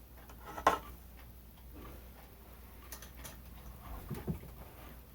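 Scattered clicks and knocks of a ceiling fan blade and its metal blade arm being handled and screwed together, with the sharpest click under a second in and lighter ticks and a knock later.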